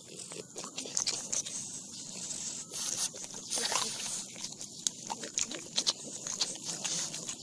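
French Bulldog biting and chewing leaves off a leafy plant: irregular sharp crunches and leaf rustling, several to a second.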